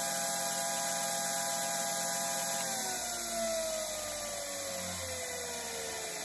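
Bench grinder motor running with a steady hum and whine, then switched off about two and a half seconds in; its pitch falls steadily as the wheel spins down.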